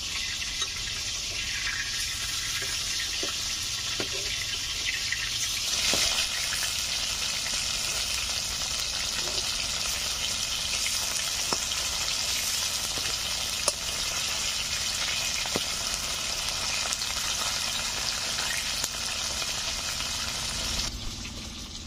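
Pieces of rohu fish frying in hot mustard oil in a kadai: a steady sizzle with scattered pops. It grows louder about six seconds in and drops away near the end.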